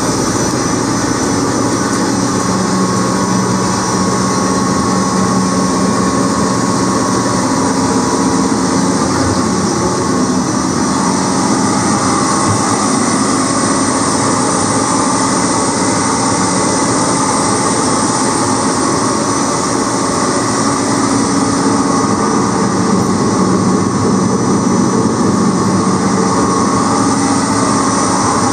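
Peerless HS28HD triple roller bar dough mixer running empty: a steady hum from its electric motor and belt drive, with several held tones.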